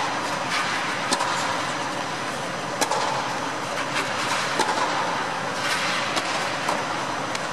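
Tennis balls struck by racquets on an indoor court: scattered sharp pops at irregular intervals over a steady rushing background noise.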